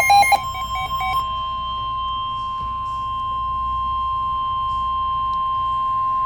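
NOAA Weather Radio 1050 Hz warning alert tone: one steady, unbroken electronic tone. It opens under about a second of rapid pulsing data beeps from the alert header.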